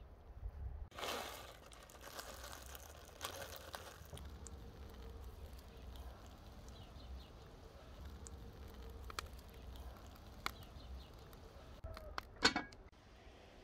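Seasoning tossed into a kazan of simmering broth: two short rustling patters in the first few seconds, then faint background with scattered clicks and one sharp clink near the end.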